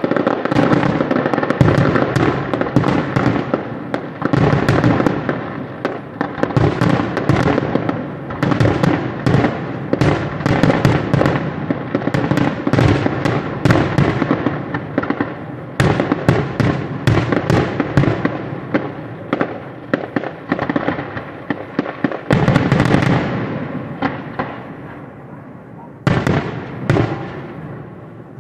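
Fireworks display finale: aerial shells bursting in a dense, continuous barrage, each burst trailing off in an echoing rumble. The bursts thin out over the last few seconds, with one last short cluster near the end.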